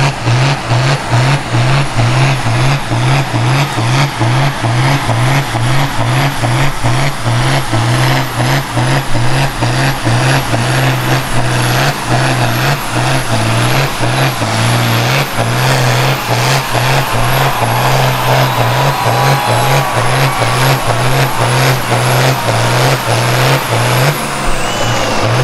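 Ford 7810 tractor's turbocharged 6.6-litre six-cylinder diesel at full power pulling a tractor-pulling sled. It runs loud with an even, rhythmic pulse and a high whine on top, then cuts off near the end as the pull finishes.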